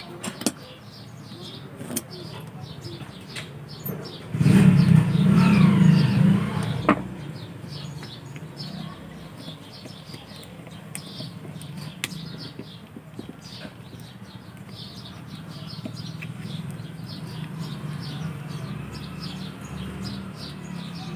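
Small birds chirping in the background, with a few sharp clicks. About four and a half seconds in, a loud low rumble with sliding pitches lasts some two seconds.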